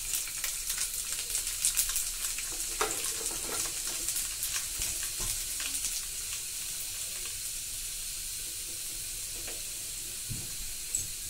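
Cumin seeds and sliced garlic sizzling in hot oil in an aluminium kadai, with fine crackles and pops over a steady hiss. The crackling is busiest in the first half and settles into a smoother sizzle.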